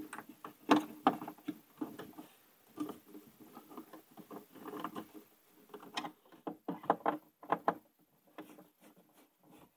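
Irregular clicks, taps and knocks of a plastic electrical enclosure being worked and pressed into place over a solar-array cutoff breaker, fewer near the end.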